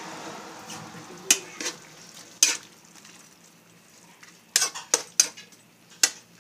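Metal ladle stirring chopped vegetables in a pan, knocking and scraping against the pan in a string of sharp clinks, a quick cluster of them about two-thirds of the way through. A soft sizzle from the pan fades out in the first second.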